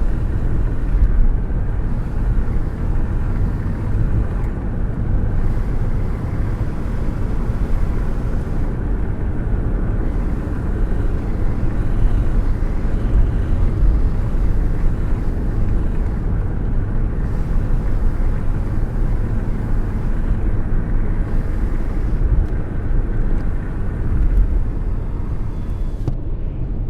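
Airflow rushing and buffeting around a hand held out of a moving car's window: a steady, uneven low rumble of wind.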